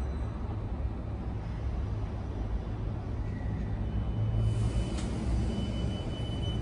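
Meitetsu red electric train starting to pull away from a station platform, over a low steady rumble. About four seconds in, a hiss and a steady high-pitched whine from its traction equipment come in as it starts moving, with a single click about a second later.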